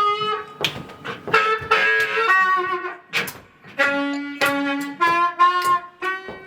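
Blues harmonica played live: phrases of held notes that step up and down in pitch, broken by short gaps and sharp rhythmic strokes.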